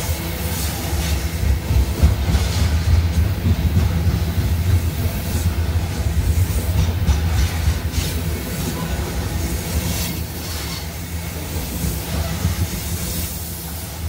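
CSX freight train's open-top hopper cars rolling past close by: a steady low rumble of steel wheels on rail with occasional clicks and clanks.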